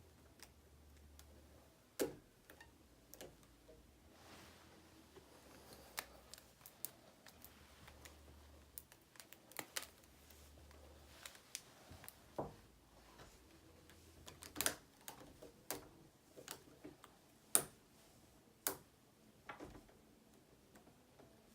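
Scattered faint clicks and taps of hands working a glass doorknob and rubber bands, irregular and spread through the whole stretch, with a few sharper knocks standing out.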